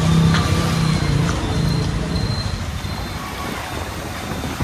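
Street traffic with a motorbike engine running close by, steady for the first couple of seconds, then fading into a more even road noise.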